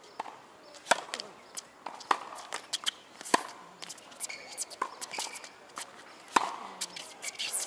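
Tennis serve and rally: sharp racket strikes on the ball about every second and a half, loud hits from the near player alternating with fainter ones from across the net, with tennis shoes squeaking on the hard court in between.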